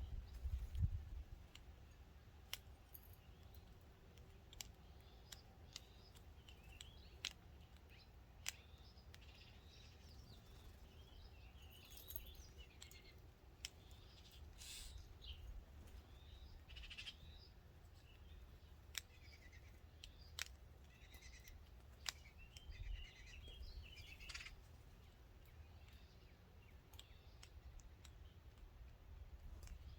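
Small birds chirping faintly and on and off, with scattered sharp clicks throughout and a low rumble underneath.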